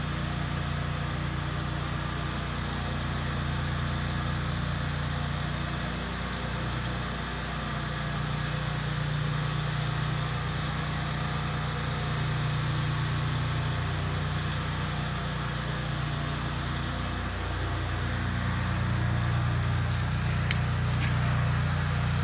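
Steady, unbroken hum of a pressure washer's engine running, with two light clicks near the end.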